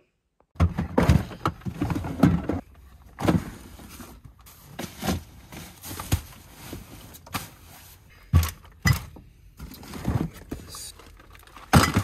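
Camping gear being loaded into a Jeep: irregular thuds and knocks as bags and boxes are set down and shifted, with some rustling.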